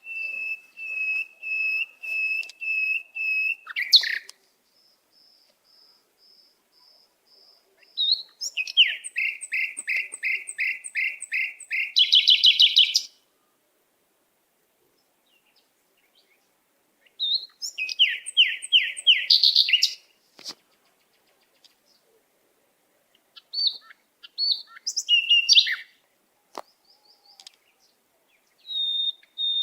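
Bird song: phrases of repeated clear whistled notes and fast trills of short falling notes, with gaps of a few seconds of silence between phrases.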